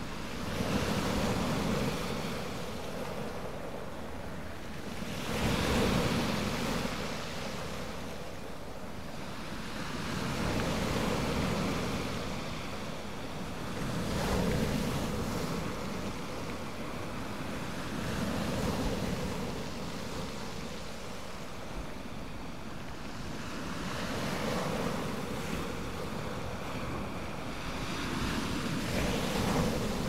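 Waves breaking onto a shingle beach and washing through the pebbles, a surge of surf every four or five seconds.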